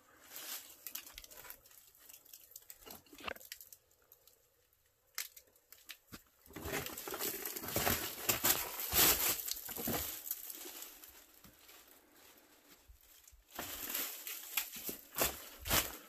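A person scrambling through a narrow rock cave: clothing rustling and scuffing against the rock in irregular bursts, busiest from about six to ten seconds in and again near the end.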